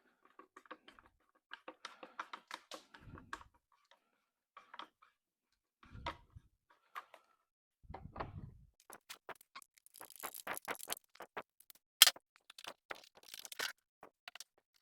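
Irregular clicks and light taps of hand tools and parts being handled, with three dull thumps about 3, 6 and 8 seconds in, scratchy rubbing later on, and one sharp louder click near the end.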